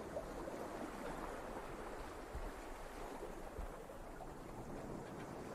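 Small waves lapping and washing over a pebble and cobble beach, a steady grainy watery wash with a couple of soft low bumps partway through.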